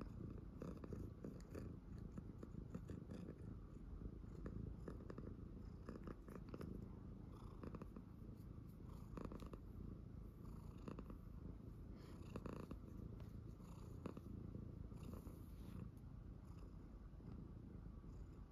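Long-haired black-and-white cat purring steadily, a low continuous rumble, as it is stroked on the head, with faint rustles now and then.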